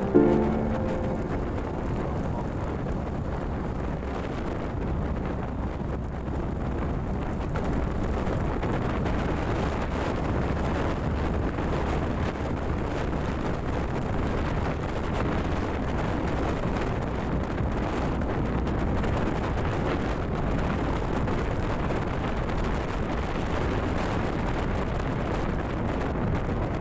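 Steady wind rumble on the microphone over the even running noise of a vehicle travelling along a road.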